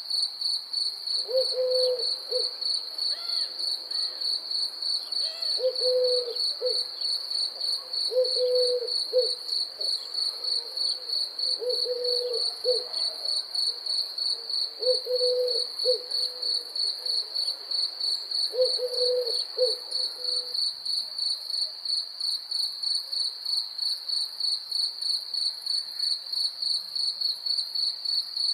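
A cricket chirping steadily on a high note, about three pulses a second, without a break. A lower call of two or three quick notes repeats every three to four seconds alongside it, stopping about twenty seconds in.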